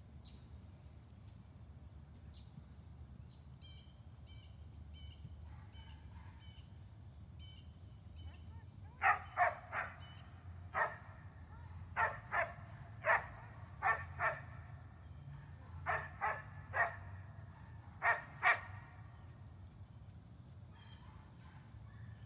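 Dog barking: about fourteen short, sharp barks in quick groups of two or three, starting about nine seconds in and stopping about eighteen seconds in.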